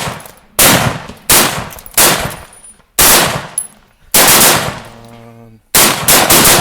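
Gunshots fired at a Tannerite target, about one every half-second to second, then three in quick succession near the end. None of them sets off the charge yet.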